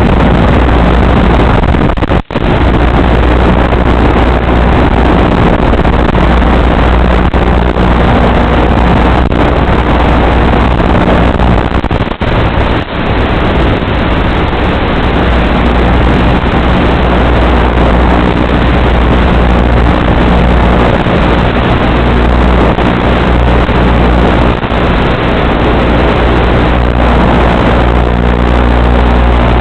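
Electric motor and propeller of an FPV model aircraft running at steady cruise throttle, picked up by the onboard microphone along with the rush of wind. The sound is a constant, sharp-edged drone that drops out briefly about two seconds in and again around twelve seconds.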